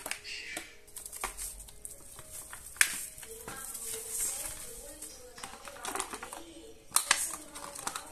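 Clear plastic blister tray and bubble wrap handled by hand: crackly rustling and a run of small clicks, with a sharper click about three seconds in and another near the end.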